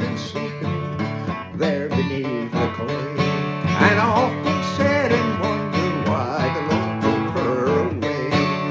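Country song: strummed acoustic guitar with a wavering melody line over it.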